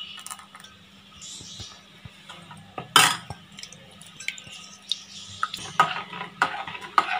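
Metal ladle clinking and scraping against a metal pot while stirring thick rice-and-coconut payasam. There is one sharp clink about three seconds in and a few lighter knocks near the end.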